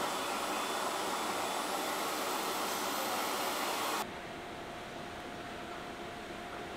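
Steady fan-like hiss from a running fiber laser marking machine. About four seconds in it drops abruptly to a quieter hiss with a faint steady whine.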